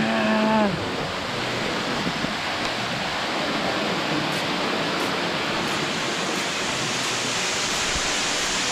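Water rushing steadily down a small waterfall through a narrow rock gorge.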